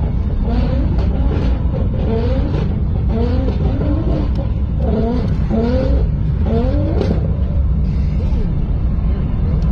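Steady deep rumble of a car's engine and tyres, heard from inside the cabin of a moving car.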